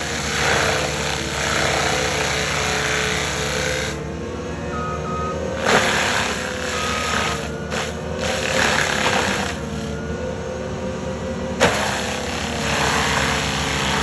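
Diesel engine of an ASV RT-120 compact track loader running hard, driving a Loftness forestry mulcher whose spinning rotor grinds through brush and small trees in several stretches of harsh shredding noise. Two sharp knocks cut through, about six and twelve seconds in.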